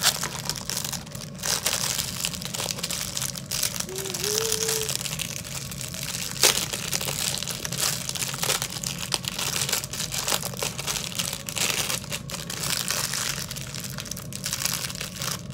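Clear plastic packaging crinkling and rustling as hands work it open, with one sharp click about six and a half seconds in.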